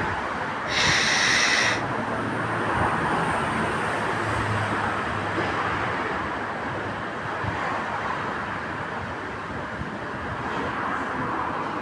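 Alstom AS-02 metro train standing at the platform with a steady running hum. About a second in, a loud, high buzzing warning tone sounds for about a second, typical of a departure or door-closing signal.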